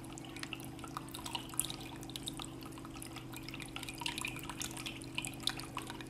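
Tabletop bamboo water fountain running: water trickling and dripping from a bamboo spout into a bamboo cup, many small irregular drips and splashes. The small fountain pump hums steadily underneath.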